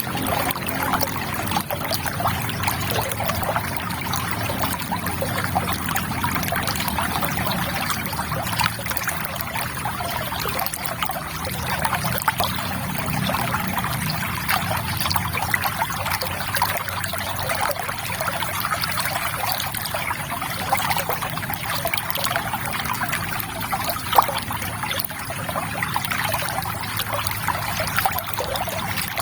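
River water trickling and babbling at a steady rate, a constant stream of small gurgles and splashes.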